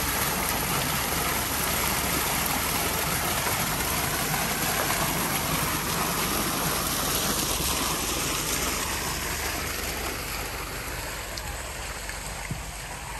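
Water from a stone garden fountain spilling from its top basin into the pool below: a steady splashing rush that fades over the last few seconds.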